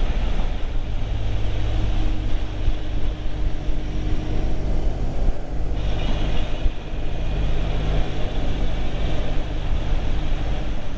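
Motorcycle riding along the open road: the engine runs with a steady low note under wind and road noise.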